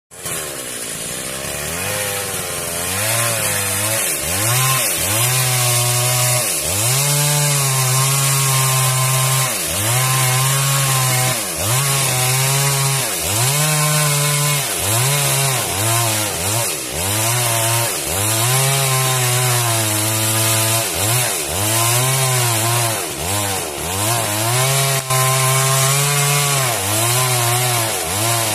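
Two-stroke chainsaw running, its engine pitch dipping and recovering about every second and a half.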